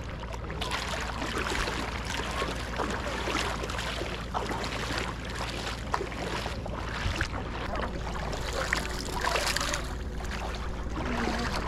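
Shallow river water sloshing and splashing around wading feet, in a steady, irregular crackle, over a steady low rumble.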